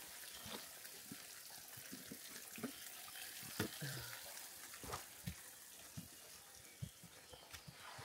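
Footsteps of hikers on a muddy forest trail: soft, irregular thuds about one or two a second, over a steady background hiss.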